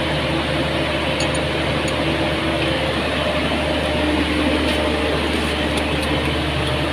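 Steady, loud drone of running palm oil mill machinery such as pumps and motors, with a few steady tones held over an even rushing noise.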